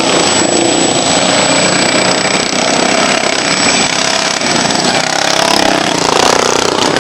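Racing lawn mower engines running loud and steady, their pitches wavering up and down as the machines race.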